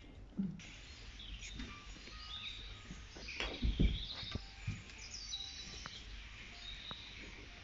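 Small birds chirping in the background over a steady hiss, with a few soft low thumps a little past halfway.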